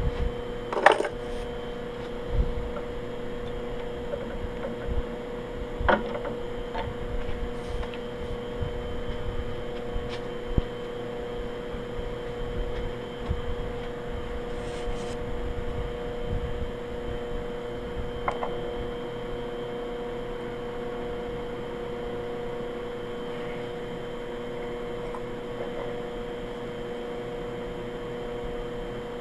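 Steady machine-shop hum with one constant mid-pitched tone, broken by a few sharp metallic clicks and knocks, the loudest about a second in.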